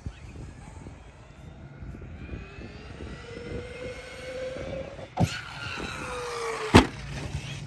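Brushless electric RC monster truck motor whining as it climbs in pitch under throttle, then two sharp impacts about a second and a half apart, the truck hitting the ground on a jump. Between the impacts the whine falls in pitch, and the second impact is the loudest sound.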